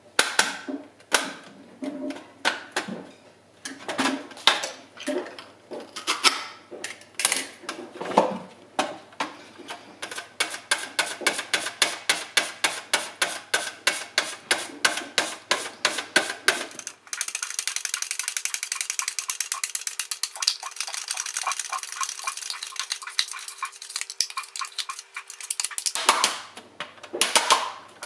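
Raw potato being sliced paper-thin on a Börner V-slicer mandoline with its hand guard: repeated scraping strokes of the potato across the blade. The strokes are uneven at first, then settle into a quick steady rhythm of several a second that gets denser and crisper for a stretch past the middle.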